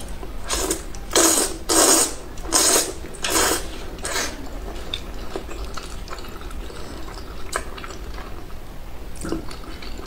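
A person slurping spicy instant fire noodles close to the microphone. About six loud slurps follow one another in the first four seconds, then quieter chewing with small wet clicks.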